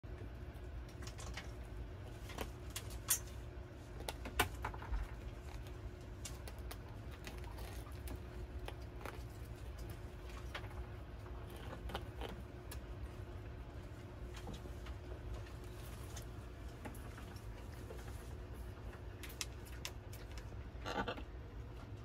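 Blue-and-gold macaw nibbling and working a thin string with its beak: scattered small clicks and ticks, a few louder ones about three to five seconds in, over a steady low hum. A brief louder sound comes near the end.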